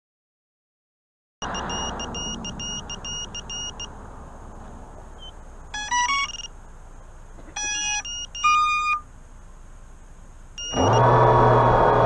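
A run of rapidly repeated high electronic beeps over a steady background hiss, followed by several short sequences of stepped electronic tones rising and falling in pitch; music comes in near the end.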